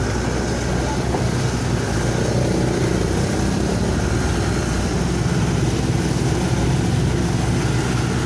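Excavator's diesel engine running steadily, a low, unbroken drone.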